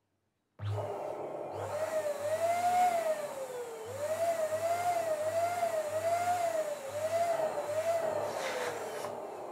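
Twin-nozzle electric balloon pump running, inflating two latex balloons at once: a motor whine that starts about half a second in, its pitch wavering up and down, then dropping away near the end.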